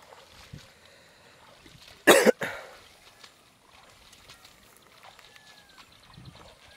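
A person coughing: one loud, harsh cough about two seconds in, followed at once by a shorter, weaker one.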